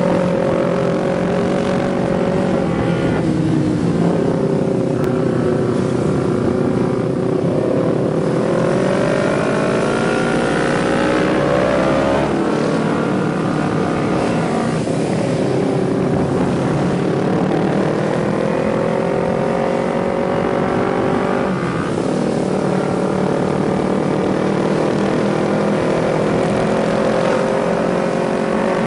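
Several Kawasaki Ninja 250R parallel-twin sport bikes riding in a group, their exhausts running steadily. The engine pitch climbs and drops back several times as the riders rev and change gear.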